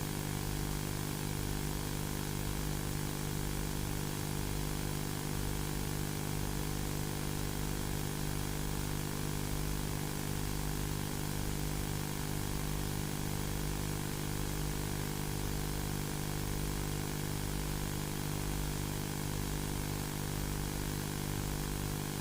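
A steady, unchanging low drone with hiss underneath, like a held synthesized tone.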